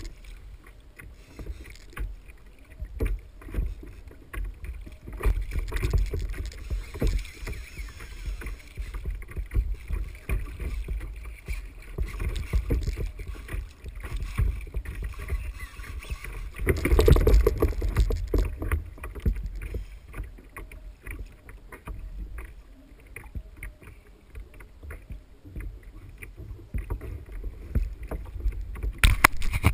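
Water sloshing and slapping against a plastic sit-on-top kayak, with wind buffeting the microphone and scattered knocks. A louder rush of noise comes about halfway through, and a short loud knock near the end.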